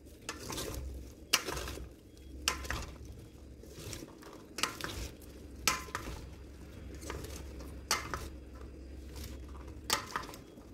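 Two wooden salad servers tossing a dressed salad in a stainless steel bowl. The leaves and vegetables rustle wetly, broken by sharp clacks several times as the wood strikes the bowl.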